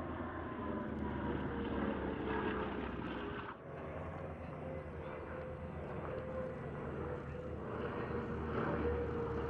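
Propeller-driven piston aircraft, CAC Boomerang fighters flying in formation with a twin-engine plane, droning overhead as a steady engine note that slowly lowers in pitch. The sound dips briefly at a cut about three and a half seconds in, then continues.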